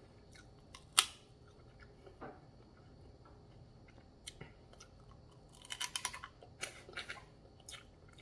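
Close-miked eating and food handling: a single sharp click about a second in, then a quick run of crackly crunches around six seconds and a few scattered clicks after.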